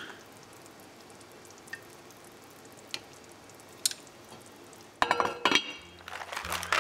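Faint clicks of chopsticks against a pot and tray, then the lid of an enamelled cooking pot set down onto the pot with a loud clatter of clinks about five seconds in. Background music begins near the end.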